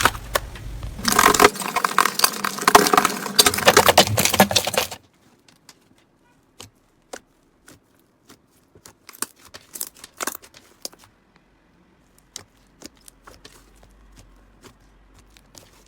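Slime being handled: dense, loud crackling and sticky clicking for about five seconds, then a sudden cut to a much quieter stretch of scattered small clicks and pops.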